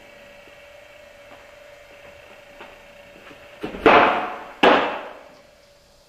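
Softball pitch thrown in an indoor room: two sharp smacks under a second apart, each ringing off the walls, as the ball leaves the windmill delivery and pops into the catcher's leather mitt.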